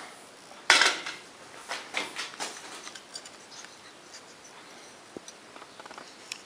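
Handling noise as the camera is moved and set on its stand: a sharp knock about a second in, a few lighter knocks and scrapes over the next two seconds, then faint scattered ticks.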